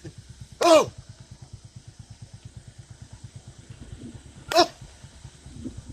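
Small engine idling, a steady low pulse of about ten beats a second, with two brief sharp cries of falling pitch, one about a second in and one near the end.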